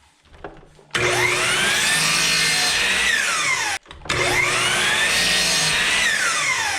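Table saw motor starting, its whine rising as the blade spins up and then falling as it winds down; the sound cuts out abruptly just under four seconds in, and the saw starts up and winds down a second time.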